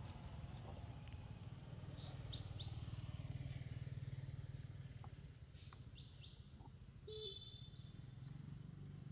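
A steady low motor hum, like an engine running, with a few short high bird chirps over it and one brief call a little past seven seconds in.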